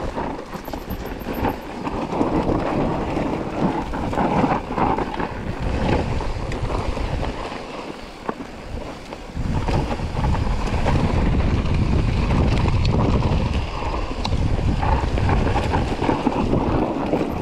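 Wind buffeting the microphone as a mountain bike rolls fast down a rough trail, with tyre noise and the bike knocking and rattling over the ground. It eases off briefly about halfway through, then picks up again.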